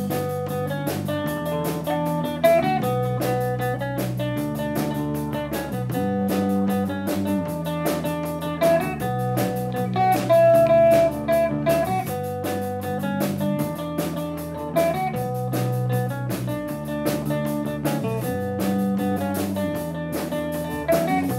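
Small rock band playing live, electric guitars and bass over a steady drum beat, in a stretch without singing.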